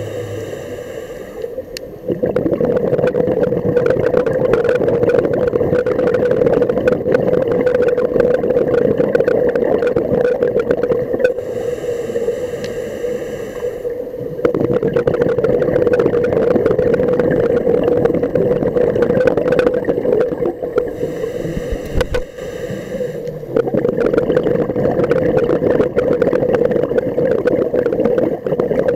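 Scuba regulator breathing heard underwater: long bubbling exhalations broken by three shorter hissing inhalations, about ten seconds apart, over a steady hum.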